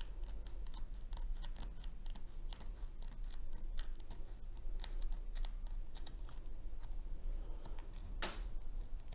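Scissors cutting the edge of a diamond-painting canvas in a run of small, irregular snips, trimming off the excess border. There is one louder noise about eight seconds in.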